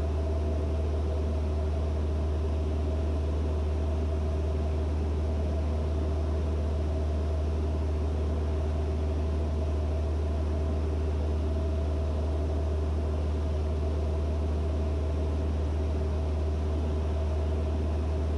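Steady drone of a Van's RV-6A's piston engine and propeller in flight, heard in the cockpit: a constant low hum with a few faint steady tones above it.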